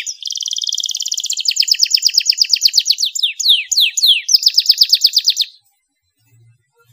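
Canary singing a fast, varied song: rapid trills of repeated falling notes, a buzzy rolled phrase, a few slower descending whistles, then a last quick trill that stops abruptly about five and a half seconds in.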